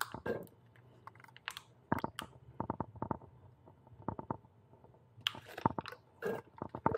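Slime tyre sealant being squeezed from its plastic bottle through the hose into an inner tube's open valve stem, with irregular crackling clicks and gurgles as the sealant and trapped air sputter through.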